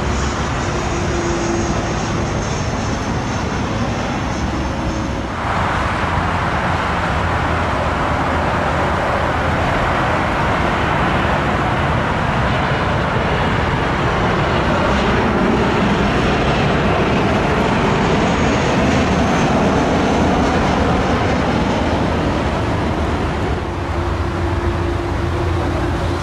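Jet aircraft on final approach. First a Dassault Falcon 2000 business jet's engines, then, after an abrupt change about five seconds in, the louder rushing engine noise of a Ryanair Boeing 737-800's CFM56 turbofans passing, its pitch falling as it goes by. Near the end the sound changes abruptly to a quieter, steady distant jet hum.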